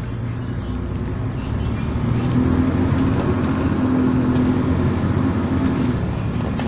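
Diesel engine of a Volvo Super Olympian double-deck bus working under load, building up over the first two seconds or so and then holding a steady drone, easing off slightly near the end.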